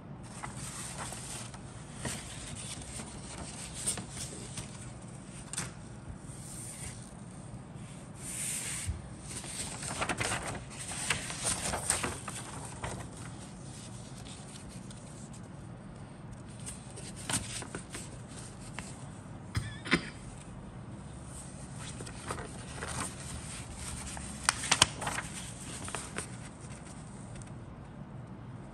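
Paper kit instruction sheet being handled, turned and refolded: irregular rustling and crinkling in bursts, with a few sharper crackles.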